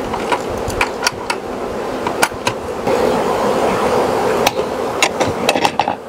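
Steady hum of many honeybees around the hive, broken by a dozen or so sharp metal clicks as the stainless steel draw latches on a plastic APIMAYE hive are worked and snapped shut.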